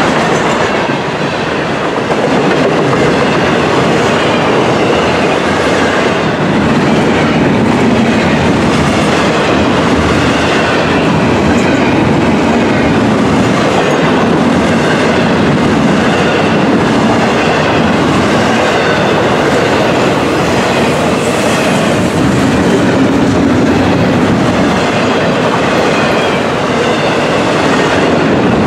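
Loud, steady rolling noise of a passing freight train's wheels on the rails. Open hopper cars and then double-stack container cars go by close to the track.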